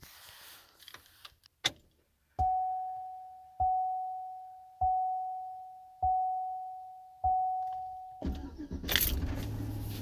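Keys jangling and a click at the ignition of a 2005 Chevy Silverado, then the truck's dashboard warning chime dings five times, evenly about a second apart, each ding fading out. Near the end the engine cranks and starts running.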